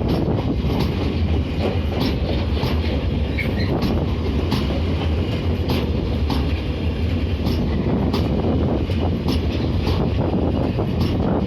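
Freight train rolling past, a steady rumble with its wheels clicking irregularly over the rail joints.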